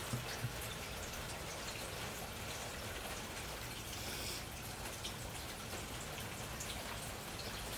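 Steady rain from an approaching hurricane, hissing evenly with scattered drop and drip clicks, swelling briefly about four seconds in.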